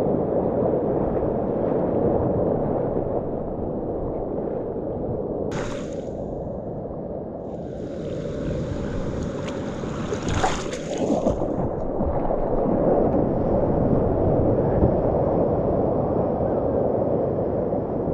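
Ocean whitewater rushing and splashing around a surfboard, heard through a waterproof GoPro housing, which muffles it. A brighter hiss joins for a few seconds midway.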